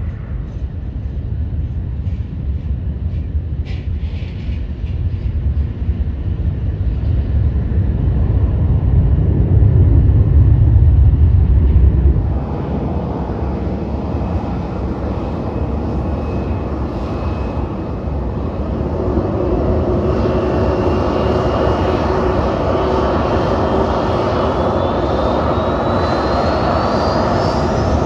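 Aircraft engine noise in two parts: first a low rumble from a light aircraft on the runway, swelling and then cutting off suddenly about twelve seconds in. Then a Southwest Boeing 737's jet engines, with a thin whine that rises steadily in pitch over the last several seconds as the engines spool up.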